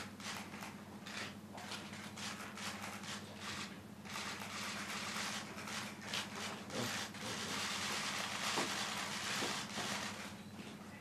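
Press camera shutters clicking in rapid, overlapping bursts, densest in the middle stretch, over a steady low electrical hum.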